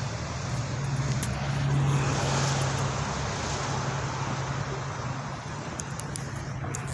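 Road traffic passing: a steady wash of engine and tyre noise, with a vehicle growing louder about two seconds in and then fading.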